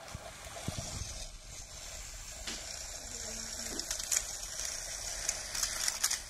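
Märklin Prussian P8 (3099) HO model steam locomotive running along the track, its motor and wheels giving a steady rattling hiss, with sharper clicks and clatters about four to six seconds in as it crosses a set of points. That clinky bump over the points is where this front-heavy digital conversion derails.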